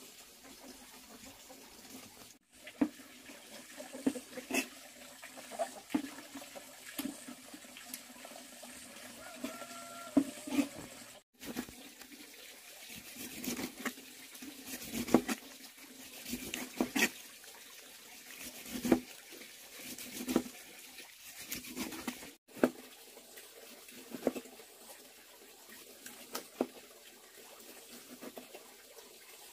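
Water sloshing and trickling, with scattered sharp knocks and clinks; the sound breaks off for an instant three times.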